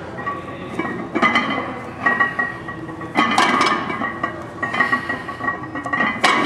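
Steel weight plates on a loaded barbell clanking during heavy barbell hip thrust reps. Three sharp metallic knocks, about a second in, a little past three seconds and near the end, each followed by a ringing tone that hangs on between them.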